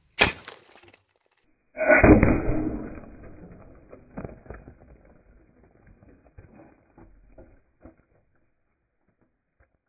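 A sharp crack, then about two seconds in a deep, drawn-out boom of a watermelon bursting under a golf ball fired from a compressed-air cannon, played slowed down. It trails away into a few smaller knocks of flying pieces.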